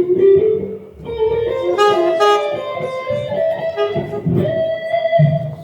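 Electric guitar playing a melodic phrase of picked notes, ending on a held note.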